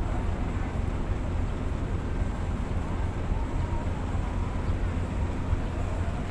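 Steady low engine rumble with no distinct events, from the idling vehicles or the ferry's engines.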